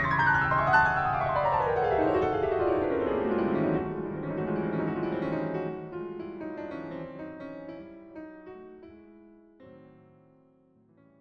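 Piano music in which a dense cluster of notes slides downward in pitch over the first few seconds, then thins to a few held notes and fades out toward the end.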